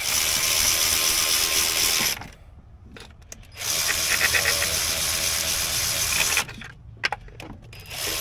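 Power tool running in bursts on the intake's bolts: about two seconds, a short pause, about three seconds, a brief burst, then starting again near the end.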